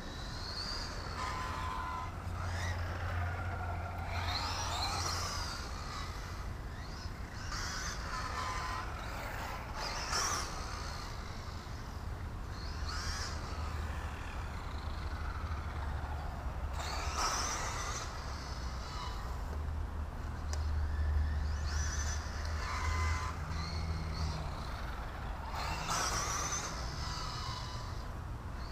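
Team Associated B5M Lite electric RC buggy with a 17.5-turn Trinity brushless motor doing laps: the motor whine rises and falls in repeated sweeps every few seconds as it speeds up and slows, over a steady low rumble.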